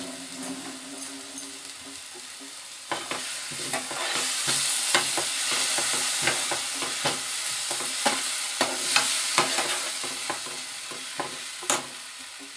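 Tomato puree and onion masala frying in a non-stick kadai, sizzling as a steel spoon stirs it and clicks and scrapes against the pan. The sizzle swells about three seconds in as the paste is spread through the hot oil, then eases toward the end.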